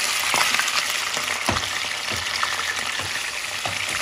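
Raw chicken pieces sizzling in hot oil in a stainless steel pot: a steady, dense crackling hiss, with a few short knocks scattered through it.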